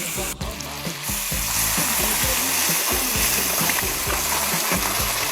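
Chunks of pork sizzling and being stirred in a hot wok as they fry in soy sauce for red-braised pork. The sizzle grows louder about a second in, over background music.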